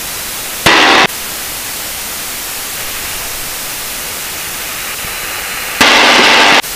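Steady static hiss on the cockpit intercom audio while the aircraft taxis. It is broken by two short, much louder bursts of noise, one about a second in and one near the end.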